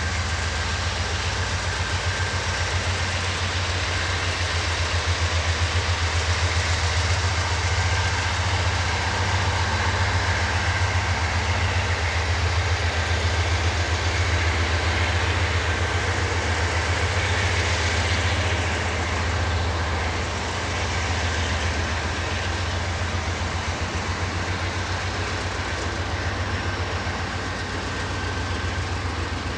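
A train rolling past steadily, with a thin steady high note above the low sound of the cars.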